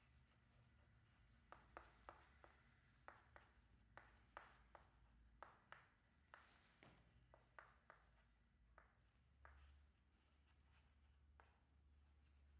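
Faint handwriting: many short, quick scratching strokes of a pen or marker being written with, over a low steady hum.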